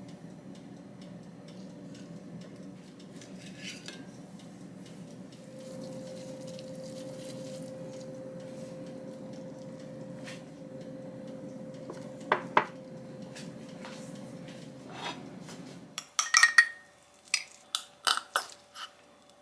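Ceramic plates and utensils clinking lightly as food is plated, with two sharp clinks about twelve seconds in, over a steady low hum that stops suddenly around sixteen seconds. After that come several sharp, ringing clinks of glass as sauce ingredients go into a glass mug.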